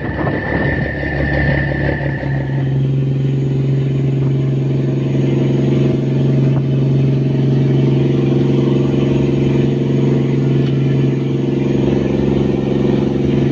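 Fishing boat's engine running steadily, a loud, even drone that firms up about two seconds in. A high steady whine runs over it at the start and stops after about two seconds.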